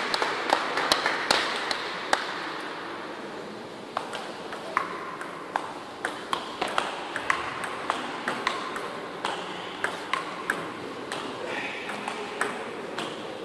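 Table tennis ball clicking back and forth off the players' bats and the table during a long rally, a sharp tick every half second or so.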